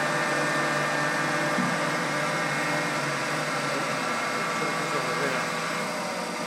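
Binns & Berry Data 90 CNC lathe's spindle drive running at about 250 RPM, the high end of its medium gear range: a steady mechanical whine of several tones, easing slightly in loudness toward the end.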